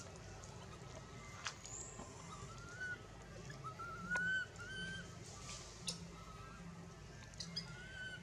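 Faint series of short, slightly rising coo-like calls from a long-tailed macaque, the loudest about four seconds in, with a few light clicks and rustles among the dry leaves.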